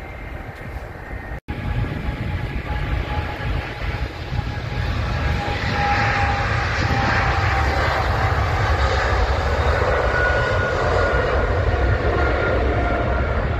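Jet airliner engines running on the ground, a steady rumble with a faint whine on top. It grows louder over the first several seconds, then holds.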